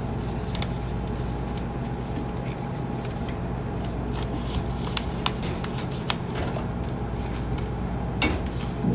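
Steady low machine hum, with scattered sharp clicks and knocks as foam cups are handled and set down on a stainless steel counter, and a louder knock about eight seconds in.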